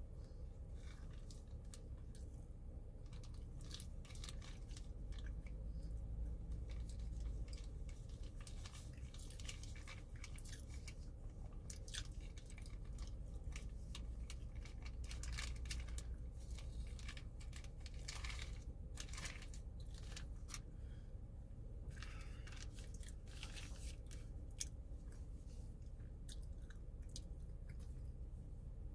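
A person chewing crunchy food close to the microphone, with irregular crisp crunches throughout over a low steady hum.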